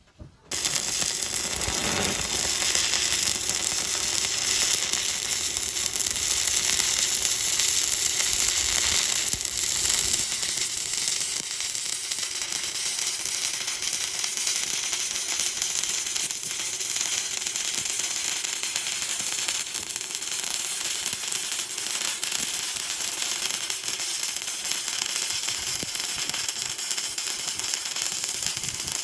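Stick (SMAW) welding arc crackling steadily as a bead is run on steel plate, struck about half a second in.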